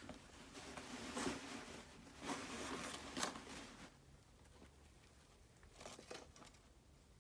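Cloth shoe bag rustling and scuffing against a cardboard shoebox as gloved hands pull a sneaker out of it, busiest in the first four seconds, then a few short rustles near the end.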